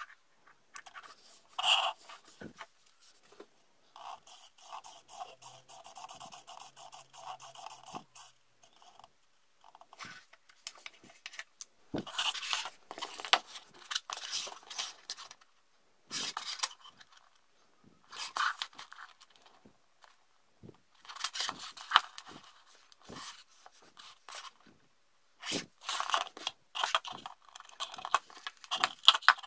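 Hands scraping, clicking and rustling small plastic parts, wires and cylindrical battery cells against a 3D-printed plastic hull, in short irregular spells. From about four to eight seconds in, a small steering servo whirs steadily, driven by a handheld servo tester.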